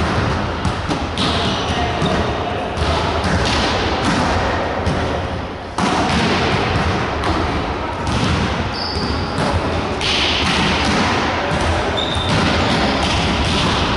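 Volleyball rally in a large gym hall: the ball is struck again and again with sharp thuds, over players' shouts and voices echoing in the hall.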